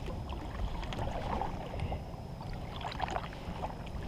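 Kayak being paddled: water splashing and lapping around the hull, with a few soft paddle splashes over a low steady rumble.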